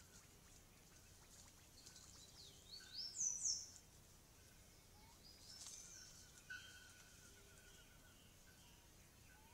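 Bird calls over near-silent forest background: two quick, high-pitched, upward-sliding calls about three seconds in, the loudest sound. A softer high call follows near six seconds, and a faint mid-pitched note repeats quickly several times just after it.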